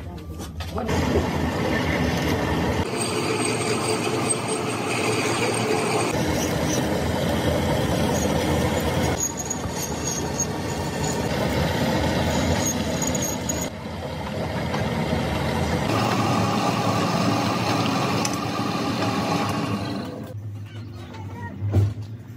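Metal lathe running while a twist drill bores into the end of a steel splined countershaft, a steady machining noise with a thin high whine at times.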